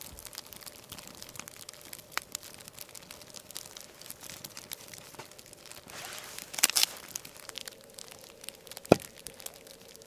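Crinkling and rustling handling noises with scattered small clicks, over a faint steady hum. A louder rustle comes about two-thirds of the way through, and a single sharp knock near the end.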